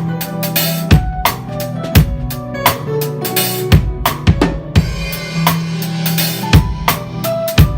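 Drum kit playing a groove, with loud bass drum and snare hits about once a second, over backing music with a held bass line and higher melodic notes.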